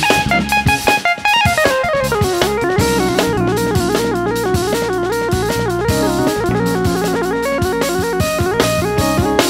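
Instrumental jazz band with a Novation UltraNova synthesizer playing the lead: a fast downward run that settles into a rapid repeating figure. Drum kit and electric bass play underneath.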